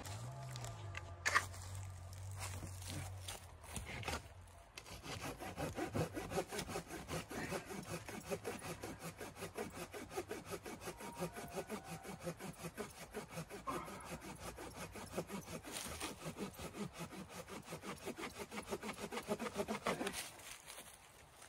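A hand saw cutting through a dry dead branch in quick, even back-and-forth strokes that stop near the end. Before the sawing starts there is a low steady hum and a sharp click about a second in.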